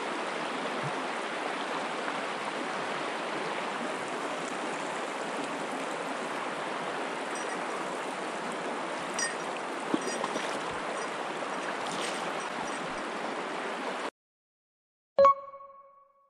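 Steady rush of a shallow river current flowing over stones, which cuts off abruptly about two seconds before the end. A single short ringing chime follows and fades over about a second.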